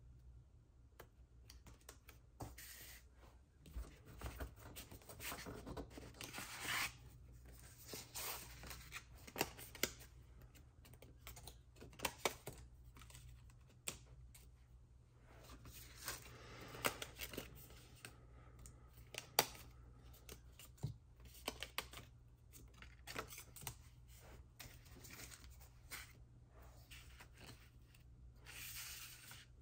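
Paper crafting at a table: paper and cardstock being handled and rustled, with scattered sharp clicks and taps at irregular intervals. A steady low hum runs underneath.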